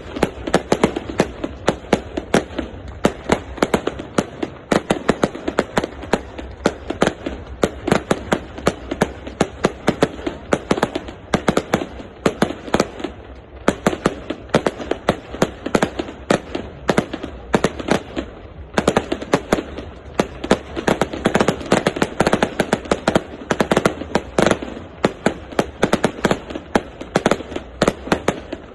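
Fireworks display: a dense, rapid barrage of bangs and crackles, many per second, easing only briefly twice about halfway through.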